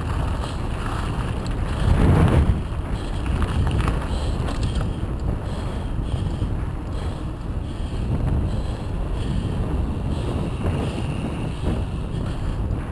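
Wind buffeting an action camera's microphone at riding speed, over the rumble of bike tyres rolling on a gravel path and then on tarmac. A louder rush comes about two seconds in.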